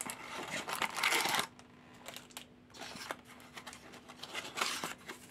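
Small cardboard surprise box being opened by hand: a burst of cardboard rustling and tearing in the first second and a half as a flap is pulled open, then quieter scattered scrapes and taps of the flaps, with another short rustle near the end.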